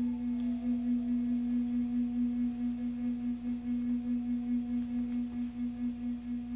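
End-blown wooden flute holding one long low note with a regular waver, played to the end of the breath.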